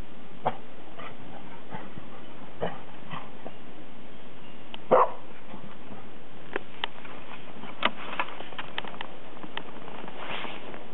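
A puppy giving a few short yips and barks, the loudest about five seconds in, over a steady background hiss, with a run of brief clicks and crunches in the second half.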